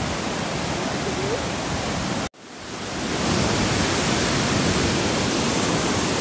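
Fast, swollen mountain river (the Ganga) rushing beneath a bridge, a steady whitewater noise. It cuts out abruptly a little over two seconds in and fades back up.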